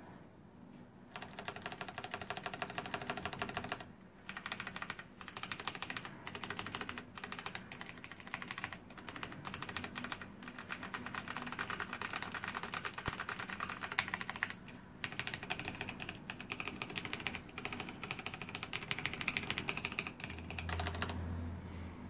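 Fast typing on a Razer BlackWidow mechanical keyboard with Kailh Orange switches: rapid runs of keystrokes broken by brief pauses about four and fifteen seconds in, stopping about a second before the end.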